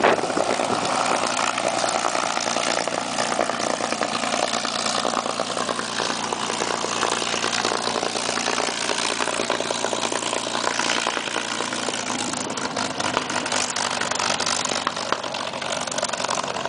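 P-51 Mustang's Merlin V-12 engine running steadily at low taxi power as the fighter rolls away, growing a little fainter near the end.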